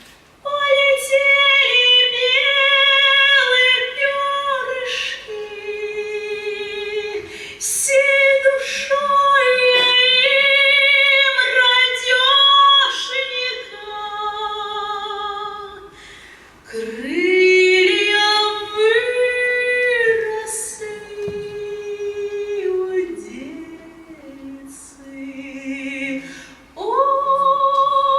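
A female vocalist singing long, held notes with vibrato, in several phrases with short breaths between them.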